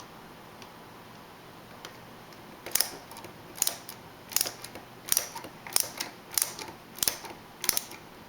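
About eight sharp metal clicks, roughly one every 0.7 s, starting a little under 3 s in: a screwdriver turning in steps as it tightens the revolver's mainspring strain screw to put tension on the mainspring.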